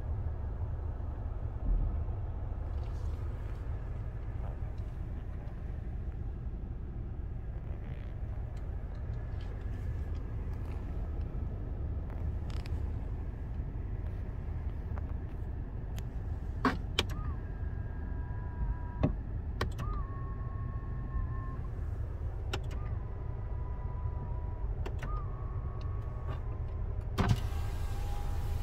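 Power windows of a 2018 Hyundai Avante AD being worked from the door switches: sharp switch clicks, each followed by the window motor running for a second or two, repeated several times in the second half, with a louder rush of the glass moving near the end. A steady low hum runs underneath.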